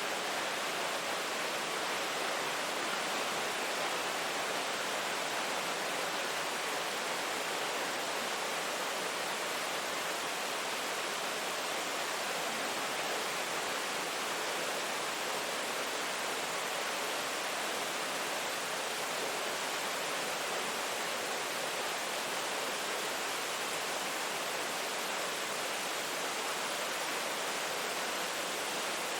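Steady rain, a dense, even hiss with no separate drops or thunder standing out.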